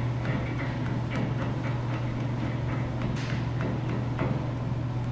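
Large steel nut being turned by hand onto the threaded end of a two-post lift's hydraulic cylinder ram, with irregular small metallic clicks and ticks. A steady low hum runs underneath.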